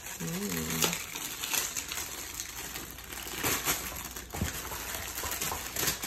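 Plastic wrapping crinkling and rustling as toys are handled, with small scattered clicks and taps. A brief voice-like sound comes in the first second.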